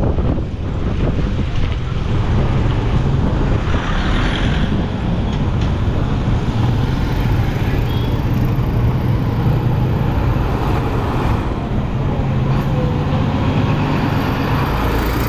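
Motor vehicle engine running steadily while travelling, a continuous low hum with traffic and wind noise over it, shifting a little in pitch partway through.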